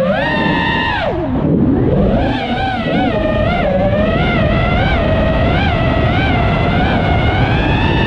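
iFlight Nazgul5 FPV quadcopter's brushless motors whining with throttle changes. The pitch drops sharply about a second in as the throttle is chopped, climbs back, warbles up and down about twice a second with quick throttle blips, then rises steadily near the end, over a low rumble.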